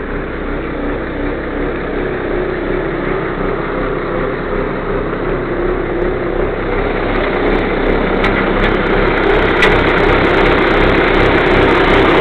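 Caterpillar 320C excavator's Cat 3066 diesel engine idling steadily, growing gradually louder toward the end.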